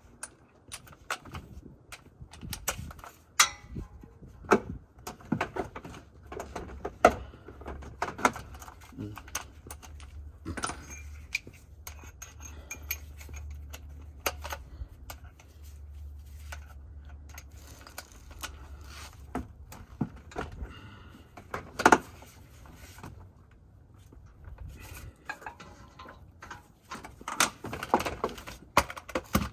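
Irregular clinks and clanks of metal tools, sockets and exhaust hardware being handled during work under a car, with several sharper knocks among them.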